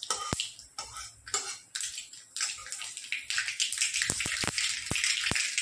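Mustard seeds crackling and popping in hot oil, the sizzle thickening into a steady hiss from about halfway in, with sharp pops near the end.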